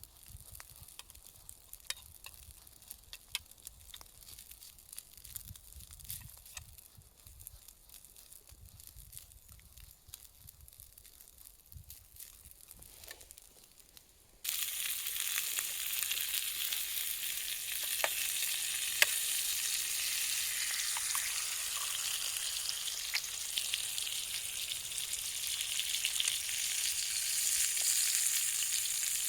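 Faint scattered clicks and crackles, then about halfway through a sudden loud sizzle as food goes into the hot frying pan, and it keeps sizzling steadily with small pops.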